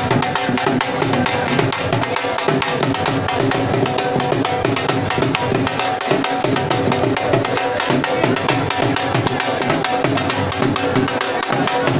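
Background music with busy, steady percussion.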